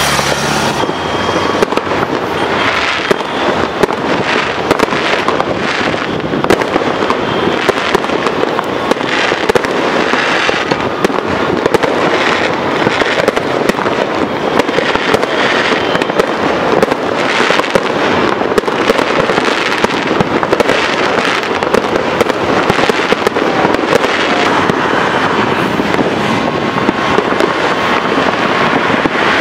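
Fireworks going off without pause: a dense, continuous run of cracks and bangs, with louder reports standing out here and there.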